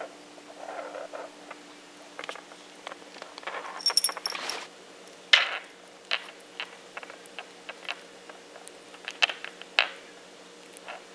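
A cat chewing and batting a small plastic troll doll on a hardwood floor: soft gnawing and scuffing, sharp taps as the toy knocks on the floor a few times, loudest about five seconds in and twice near the end. The metal tag on its collar jingles about four seconds in.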